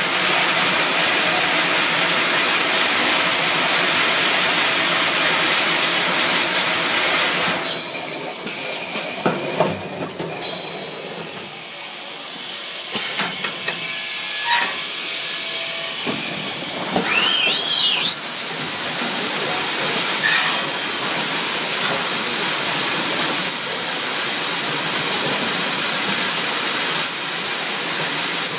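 Water-spray jets hissing inside a 5-gallon bottle rinsing and filling machine as the bottles pass through. The hiss is steady, drops back about a third of the way in with scattered clicks, and a few brief gliding squeaks come around two-thirds of the way through before the spray noise resumes.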